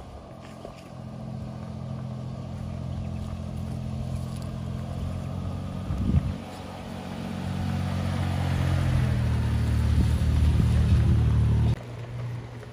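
Four-wheel-drive vehicle's engine working under load on an off-road climb. It is a steady drone that grows louder, with a brief thump about six seconds in, and drops abruptly near the end.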